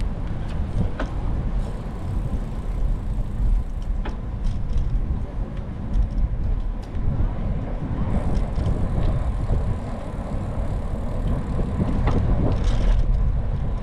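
Steady low rumble of wind and tyre noise while riding a bicycle, with a few light clicks.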